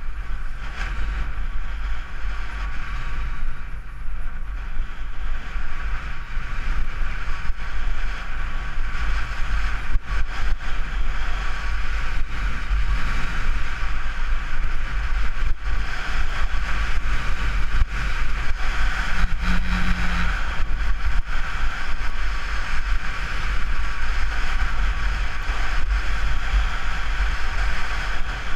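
Wind buffeting a helmet-mounted GoPro 3 camera's microphone during a ski descent, a steady loud rumble, with the hiss of skis sliding over groomed snow.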